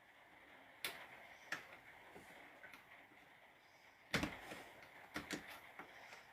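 Scattered clicks and knocks of small parts and tools being handled on a bench while a cordless angle grinder is worked on, the loudest knock about four seconds in.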